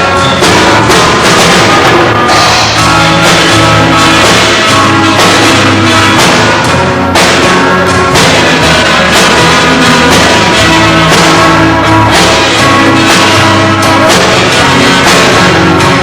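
Rock band playing loudly at a soundcheck: drum kit keeping a steady beat under sustained bass and electric guitar.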